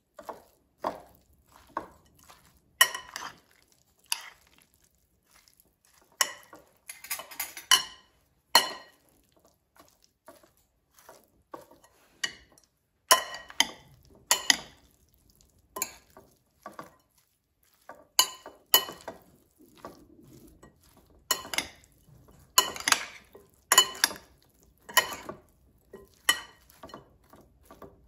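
Metal serving spoons tossing a dressed salad in a glass bowl, clinking and scraping against the glass at irregular intervals.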